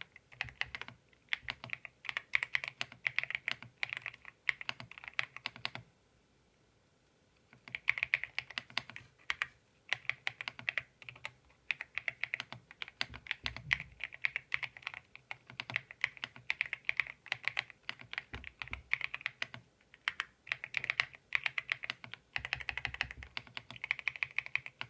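Typing on a Royal Kludge mechanical keyboard with swapped-on keycaps: fast, steady runs of key clacks, with a pause of about two seconds some six seconds in.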